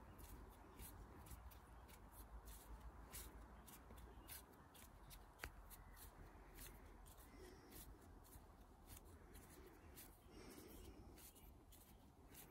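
Very faint rustling and soft ticks of clay-covered hands squeezing and rubbing a lump of clay between fingers and palm, with one sharper click about five seconds in.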